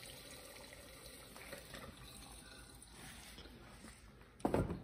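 Gasoline pouring from a plastic gas can through a funnel into a pickup's fuel tank, a steady trickle that tapers off about three seconds in. Near the end, a single loud thump.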